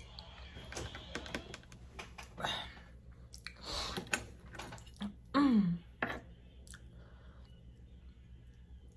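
Close-up chewing and mouth sounds of a person eating, with scattered small clicks and smacks and a few louder chews. About five seconds in there is a short falling hum from the eater.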